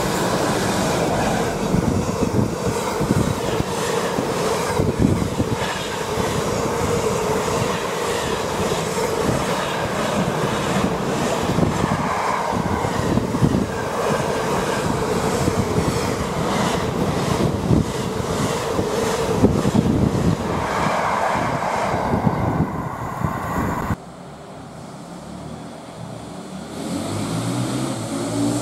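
A diesel-hauled freight train running through the station at speed, its wagon wheels clattering steadily over the rail joints. About 24 seconds in it cuts off abruptly and a quieter rumble of a distant approaching train takes its place.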